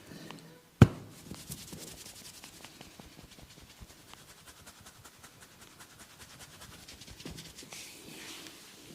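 Hands rubbing and scratching through hair on the scalp during a head massage, a dense crackle of fine rubbing clicks. One sharp, loud smack comes about a second in.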